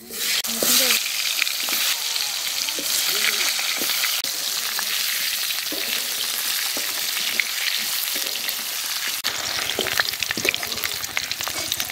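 Potato wedges sizzling and crackling as they fry in hot oil in a metal wok, with a metal spatula clicking and scraping against the pan as they are stirred.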